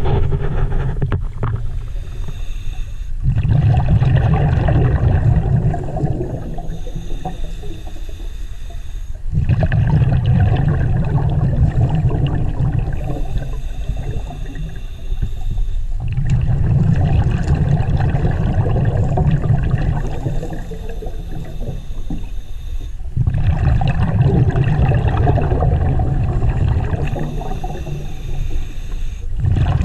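Scuba diver breathing through a regulator underwater. The bubbly rumble of each exhale alternates with the thin whistling hiss of each inhale, about one breath every six to seven seconds.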